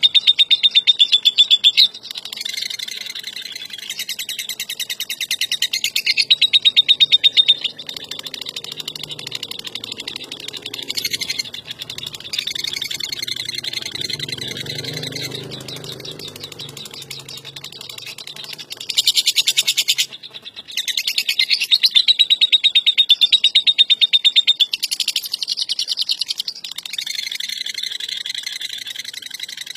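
Lovebird's long ngekek: a fast, rattling chatter of high notes. It comes in loud stretches lasting a few seconds each, at the start, around a quarter of the way in and through much of the second half, with softer chatter between.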